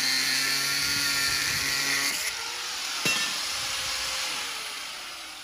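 Corded angle grinder cutting steel, its disc running at a steady whine. About two seconds in the cut ends; there is a knock about three seconds in, then the whine falls and fades as the disc spins down.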